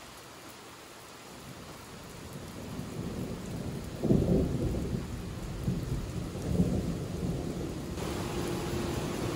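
Steady rain falling, growing louder, with a long low roll of thunder that starts about four seconds in and rumbles on for a few seconds.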